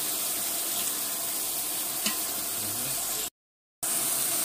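Shredded cabbage, carrots, capsicum and peas sizzling in hot oil in a large steel pot as they are stir-fried with a slotted metal spatula. A single sharp click comes about two seconds in, and the sound cuts out completely for about half a second a little after three seconds in.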